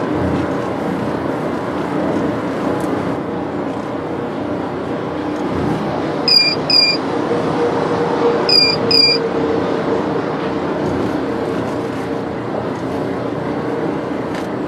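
Steady car-cabin road and engine noise at highway speed, broken by the blind-spot detection buzzer: two short high beeps about six seconds in, then two more about two seconds later. The buzzer is the second-level warning that a vehicle is in the blind spot while the turn signal is on.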